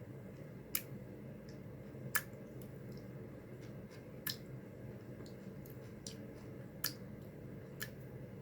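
Eating sounds at a table: about five sharp clicks and taps, irregularly spaced, the loudest about two seconds in, over a steady low hum.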